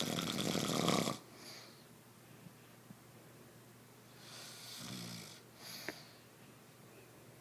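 A person snoring: a loud, rough snore in the first second, then a softer snore with a short low grunt about five seconds in.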